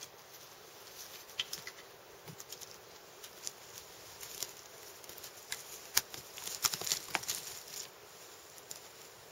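Footsteps on a forest floor of dry twigs, needles and brush, with short twig cracks and crackles as someone walks past, loudest about six to seven seconds in.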